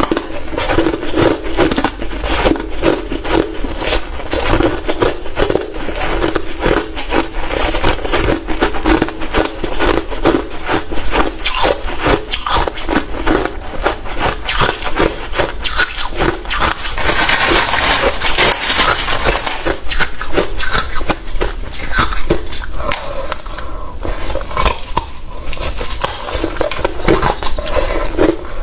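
Hard refrozen crushed ice being chewed close to the microphone: a dense, continuous run of loud crunching.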